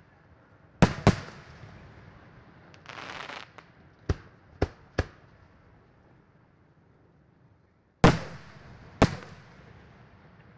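Aerial firework shells bursting over the display: two loud bangs about a second in, a short hiss, three sharper reports in quick succession around four to five seconds, then two more loud bangs near the end, each trailing off.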